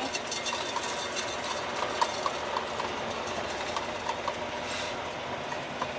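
Heard from inside the cab, a semi tractor pulling two pup trailers, rolling slowly: steady engine and road rumble with frequent light clicks and rattles.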